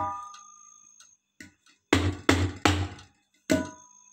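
Knocks on the bottom of an upturned metal cooking pot resting on a steel plate, the metal ringing after the strikes: three quick knocks about two seconds in and one more near the end, tapping the pot to turn a baked cake out.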